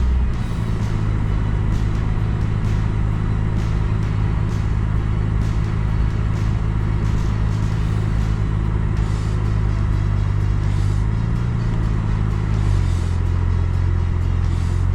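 A car driving along a road: steady engine and tyre drone. The engine note rises briefly and drops again about three-quarters of the way through.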